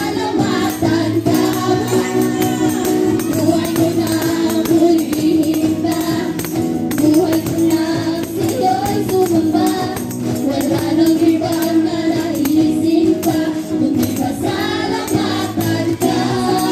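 Live praise-and-worship band playing and singing through a PA system: several voices singing together over acoustic guitars and keyboard, with a steady light percussion.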